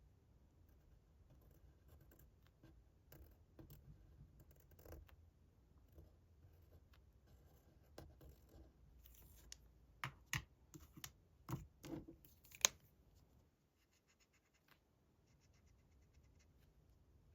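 Faint scratching of drawing strokes on paper, with several sharper clicks or taps about ten to thirteen seconds in.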